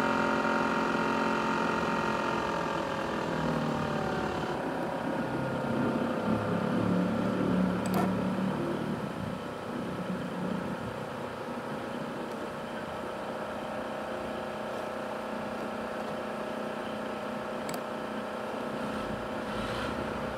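Asus X543UA laptop's CPU cooling fan running with a whine of several steady tones. About two seconds in, the pitch falls as the fan slows, then it holds steady, with a few faint clicks later on.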